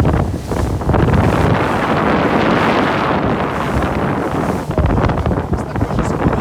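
Loud wind buffeting the microphone on a moving boat, with the rush of water beneath it.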